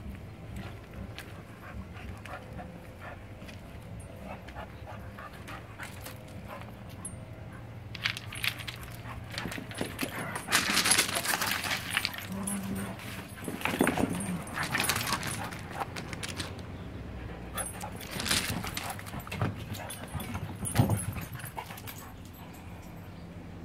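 Pit bull puppy and dogs playing rough: a run of irregular scuffling bursts and dog noises starting about eight seconds in and dying away near the end.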